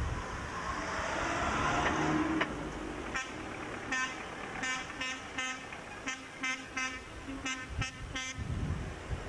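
A car drives past, then a car horn toots a quick run of about a dozen short beeps, all at the same pitch, from about three seconds in until near the end.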